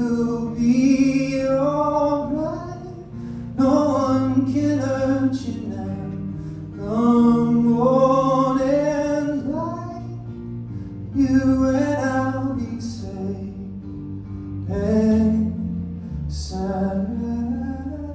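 A man singing a slow song solo to his own acoustic guitar, live. The vocal comes in phrases of a few seconds with short gaps between them, over the steady guitar.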